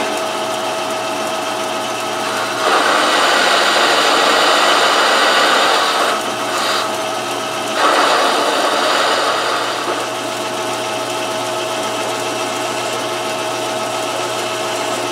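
Metal lathe running steadily with the hum and whine of its motor and gears, taking a cut off the flange of an aluminium pulley; the cutting noise comes on louder in two passes, about three and two seconds long, and the lathe runs on more quietly after them.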